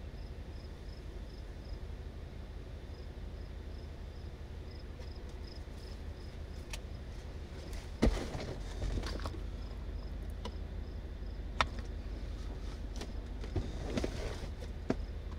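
An insect chirping in a steady rhythm, about three short high chirps a second, over a steady low rumble. A sharp knock comes about halfway, the loudest sound, followed by a few fainter clicks and rustles.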